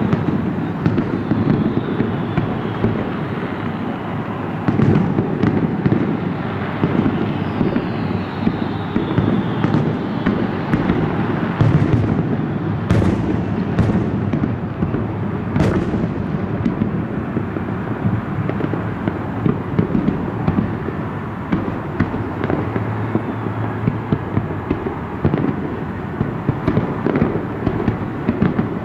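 Aerial fireworks shells bursting in a rapid, continuous barrage, the booms blending into a steady rumble. Several sharper, louder cracks stand out around the middle.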